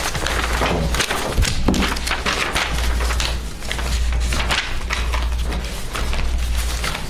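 Paper rustling as loose sheets and folder pages are turned and shuffled on a table, in irregular crinkly strokes over a steady low hum.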